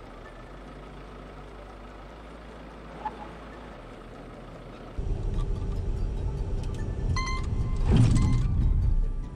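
A steady low background at first. About five seconds in, loud rumbling road and wind noise starts inside a moving smart #1 electric car. About two seconds later a short series of electronic warning beeps sounds, the car's pedestrian collision warning, followed by a louder surge of noise.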